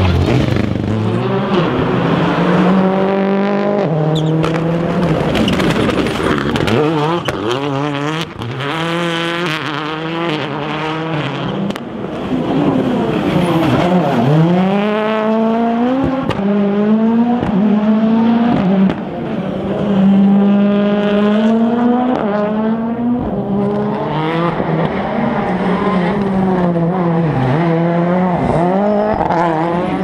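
Turbocharged four-cylinder World Rally Cars, a Citroën DS3 WRC among them, driven flat out one after another. Each engine revs up, drops back at every gear change and falls away under braking, with a few sharp cracks about a third of the way in.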